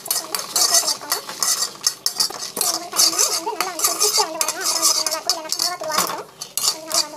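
A steel spatula stirring and scraping dried red chillies around a pan as they roast, in quick, irregular scrapes.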